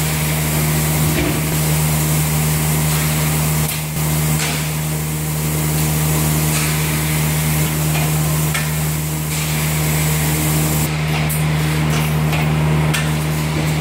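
Thermoforming machine running: a steady machine hum with hiss, broken by occasional knocks as the forming press works.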